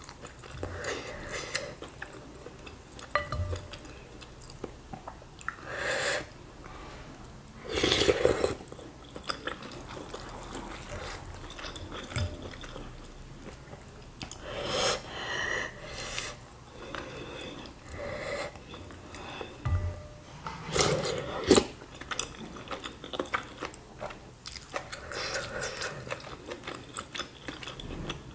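Close-miked chewing and biting of meatballs in spicy broth, in uneven bursts with the loudest around 8 and 21 seconds in. Wooden spoon and fork work in a ceramic bowl.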